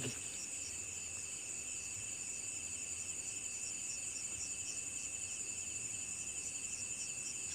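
Night insect chorus of crickets: a steady high-pitched trill with a lower steady trill beneath it and a softer chirp pulsing a few times a second.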